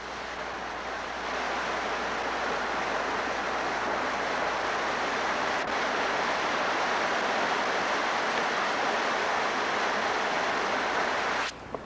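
Flooded Peachtree Creek rushing steadily, a continuous noise of fast floodwater; it cuts off suddenly just before the end.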